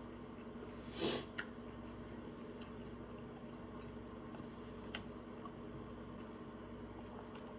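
A man chewing quietly with his mouth closed, with one short breath through the nose about a second in and faint mouth clicks soon after and again near five seconds, over a steady low hum.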